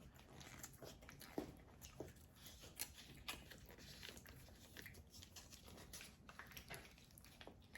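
Faint eating sounds: scattered soft clicks and small mouth noises of chewing crackers, quiet and irregular.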